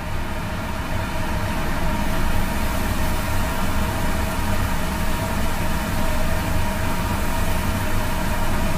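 Batter-coated cabbage rolls deep-frying in a pan of oil, a steady sizzling and bubbling that grows a little louder about a second in as more rolls go into the oil, over a steady low hum.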